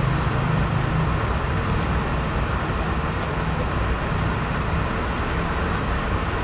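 Steady background noise with a low hum underneath, the room noise picked up by the recording microphone.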